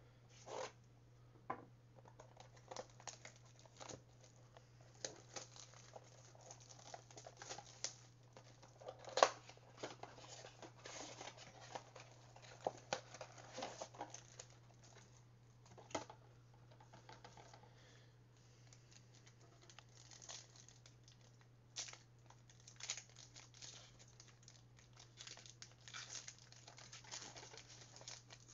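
2019-20 Panini Mosaic trading card packs and their box packaging being torn open and crinkled. It comes in irregular bursts with scattered sharp taps and snaps, the loudest about nine seconds in, over a low steady hum.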